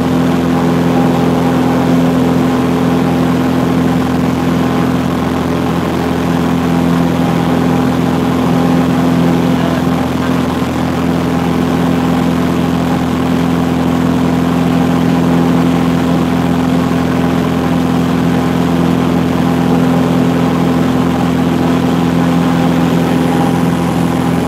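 Cessna 182P's six-cylinder Continental O-470 engine and propeller running steadily at power as the plane climbs out after takeoff, heard from inside the cabin as a loud, even drone with a strong low hum.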